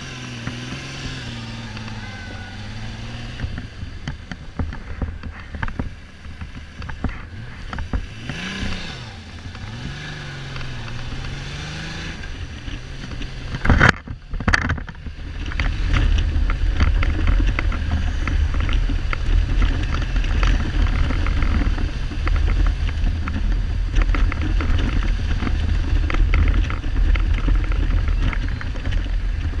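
Kawasaki Z1300 inline-six engine running on the move, its pitch rising and falling, with two sharp knocks about halfway through, after which heavy wind noise on the microphone takes over as speed builds. The engine is not running on all cylinders, a misfire the owner puts down probably to the carburettors making the plugs fail.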